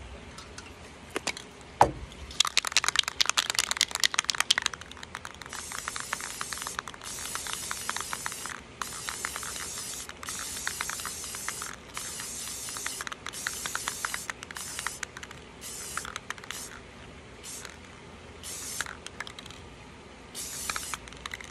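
Aerosol can of Rust-Oleum marigold gloss spray paint rattling for a couple of seconds, then spraying in a string of hissing bursts of about a second each with short gaps. The bursts grow shorter and sparser toward the end.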